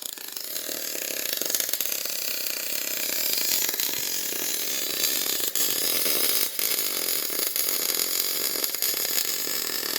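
CO2-shielded (MIG/MAG) welding arc running, a steady crackling hiss.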